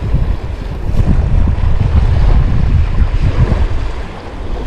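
Wind buffeting the microphone in a loud, gusting rumble, with sea waves washing against the seawall beneath it.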